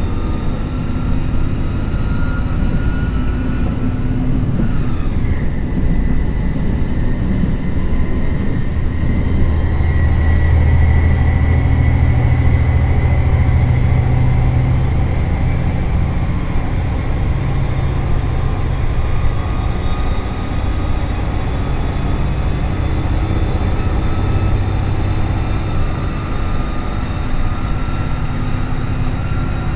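Komatsu SA6D140HE-2 diesel engine and DW21 transmission of an ET122 diesel railcar pulling hard under acceleration, heard from inside the car. The transmission shifts up from direct 2 to direct 3 about five seconds in, with a falling whine. After the shift the engine runs on loud under power with a steady gear whine.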